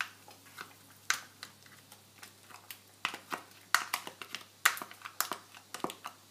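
A steel spoon scraping and tapping against a plastic tub, knocking thick ground coconut paste out into a pan: a string of irregular sharp clicks and taps, coming faster in the second half.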